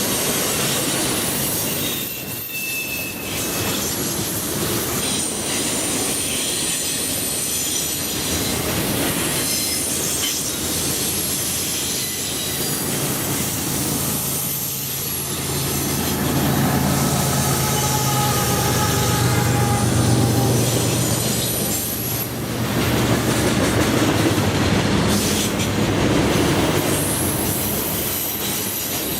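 Train rolling past, its steel wheels squealing against the rail in thin high-pitched squeals over a steady rumble. A low steady drone joins through the middle stretch.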